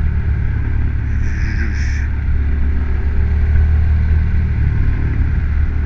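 Motorcycle engine running steadily while riding along at road speed, a deep even drone with road noise over it.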